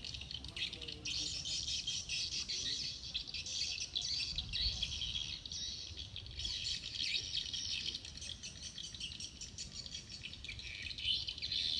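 Birds chirping in a dense, continuous high-pitched chorus.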